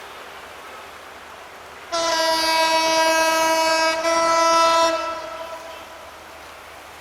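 Diesel locomotive air horn sounding over the steady hiss of heavy rain. A blast of about two seconds is followed at once by a shorter blast of about one second, and it then fades away.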